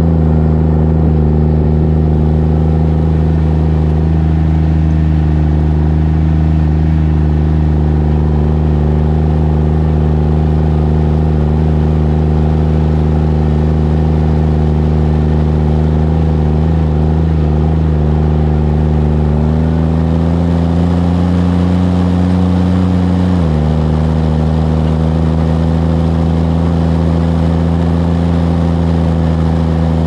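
JCB Fastrac 3230 Xtra tractor's diesel engine running steadily while driving, heard close to its exhaust stack. Its note rises slightly about two-thirds of the way through, then drops suddenly a few seconds later and holds steady again.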